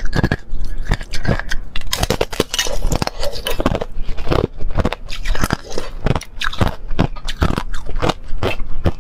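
A thin, clear sheet of ice being bitten and chewed close to a clip-on microphone: dense, irregular crackling crunches, several a second.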